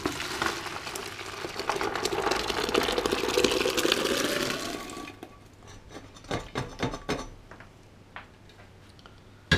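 Hot water and boiled maize poured from a metal pan into a plastic bucket: a steady splashing pour, rising slightly in pitch as the bucket fills, that stops about five seconds in. Then a run of separate knocks and rattles as the upturned pan is tapped out over the bucket.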